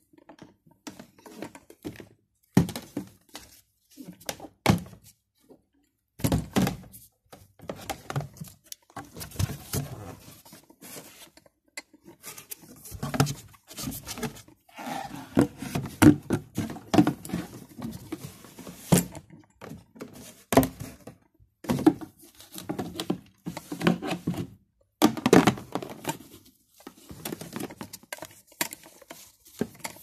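Irregular knocks, taps and rustles of gloved hands handling a plastic hair dryer and its cardboard box. The dryer is not running.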